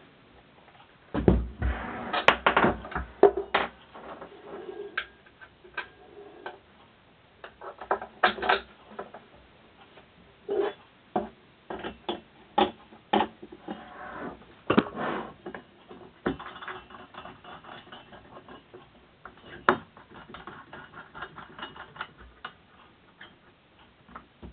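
Irregular metallic clicks and knocks of two 13 mm spanners on the nuts and bolts that fix a metal plate to the column of a Durst M605 enlarger, the busiest stretch in the first few seconds.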